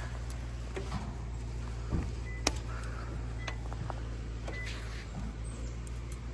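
A few small sharp clicks and light rubbing as hands work the motor cable and its plug along the e-bike's frame, over a steady low hum.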